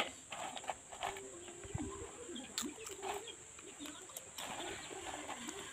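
A dove cooing in a low, wavering voice, with small clicks and mouth sounds of eating by hand, over a steady high-pitched hum.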